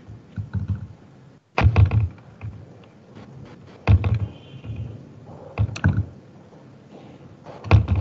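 Dull thunks every second or two, some in quick pairs, over a quiet room background. A faint high tone sounds briefly near the middle.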